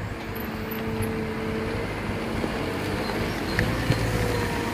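Diesel engine of a Cat M315D wheeled excavator converted to a road-rail machine, running steadily with a held whine above it as the machine travels along the track, growing gradually louder as it approaches.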